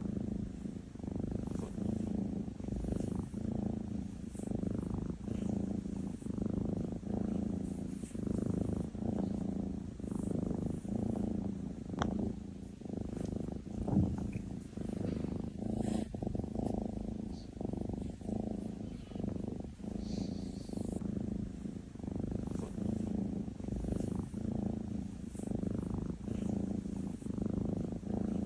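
Maine Coon cat purring steadily, the rumble swelling and dipping with each breath in and out. A couple of brief taps come near the middle.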